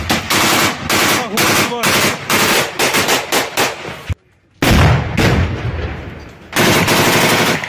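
Loud bursts of automatic small-arms fire, shot after shot in quick runs. It cuts out abruptly for about half a second just after four seconds in, then the rapid fire resumes.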